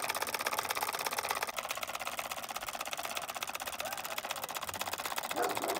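Homemade battery-powered copper-coil engine on a foam toy boat running, giving a rapid, even clatter of clicks.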